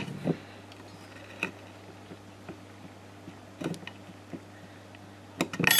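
Small knife clicking and scraping as it cuts a slot through a length of plastic line held against wooden decking: a few light clicks spread out, then a quick cluster of louder clicks near the end.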